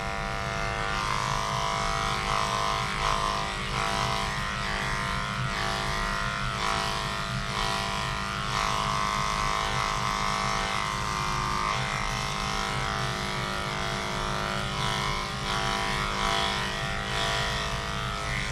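Cordless dog grooming clippers fitted with a guard comb running steadily with a constant hum as they are worked through a puppy's fine, fluffy coat.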